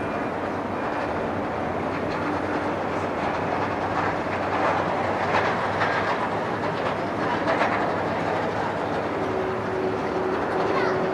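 Distant jet engine rumble of a Boeing 747-400 freighter with four GE CF6-80C2 engines as it rolls out on the runway after landing: a steady, dense roar. A faint steady tone comes in near the end.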